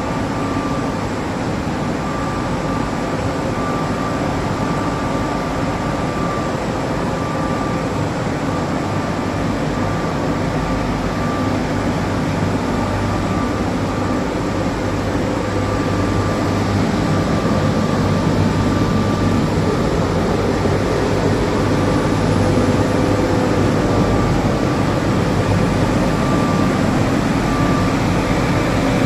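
Sesame dry dehulling machine running: a steady mechanical noise with a low hum and a faint on-and-off whine, growing slightly louder about halfway through.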